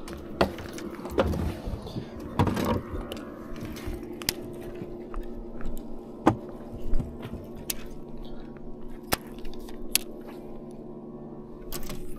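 Scattered sharp clicks and knocks of fishing gear being handled in a boat, a rod, reel and tackle tray, over a steady low hum.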